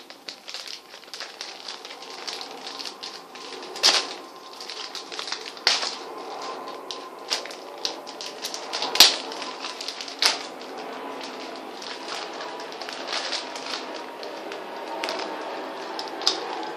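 Plastic toy packaging crinkling and rustling as it is torn open and the toy is pulled out, with a few sharp plastic snaps along the way.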